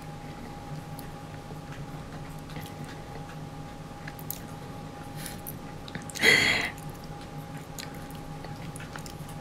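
Quiet mouth sounds of a person eating: faint soft clicks of chewing, and one short, louder wet mouth noise about six seconds in, over a steady low hum.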